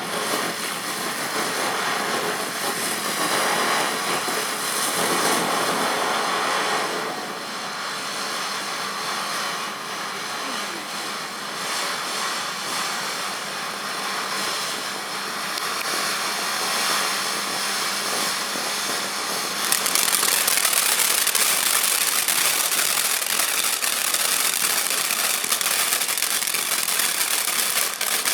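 A 500 g firework fountain burning with a steady, loud hiss of spraying sparks. About two-thirds of the way through it turns louder and sharper, with fine crackling over the hiss.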